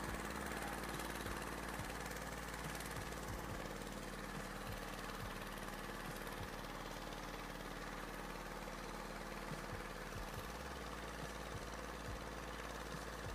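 An engine running steadily, a constant hum with a few faint clicks scattered through it.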